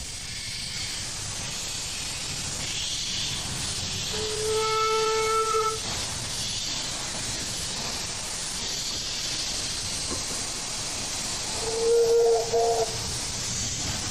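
Narrow-gauge steam locomotives hissing steam steadily. A steam whistle sounds twice: once for about a second and a half some four seconds in, and again more briefly near the end on a lower, two-note pitch.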